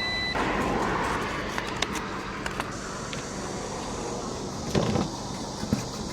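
Scattered light clicks and taps as the parts of an electric kettle are handled during repair, over a steady background hum.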